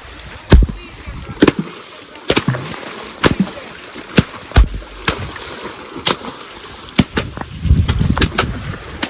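Machetes slapping the water surface in sharp, repeated smacks, about one a second, with splashing: fishermen beating the water to drive fish toward a net.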